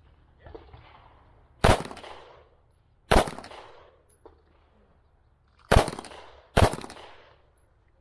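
Four pistol shots fired at targets, each followed by a short echo. The first two come about a second and a half apart, then a pause, then two more in quick succession near the end.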